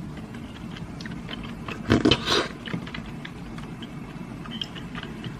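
Quiet eating sounds: a plastic spoon scooping and scraping in a plastic tub of dessert soup with small chewy balls, with faint scattered clicks and a brief louder sound about two seconds in.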